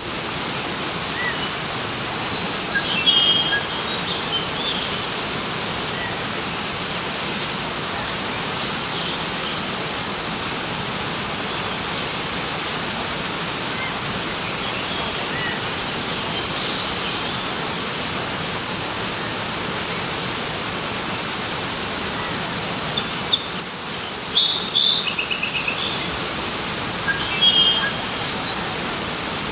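River water rushing steadily, with birds chirping on and off over it; a run of rapid chirps about three quarters of the way through is the loudest.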